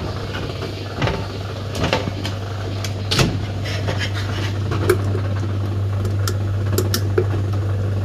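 Scattered light clicks and knocks of hands and tools working inside a washing machine, over a steady low hum.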